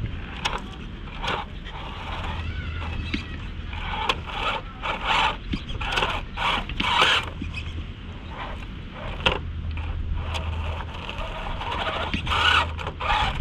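Redcat Gen 8 RC rock crawler climbing rock: its tyres and chassis scrape, crunch and knock over the stone in quick irregular strokes. A low drivetrain hum comes in for a few seconds at a time under the scraping.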